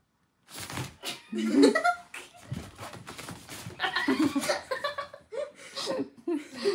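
People laughing, starting about half a second in.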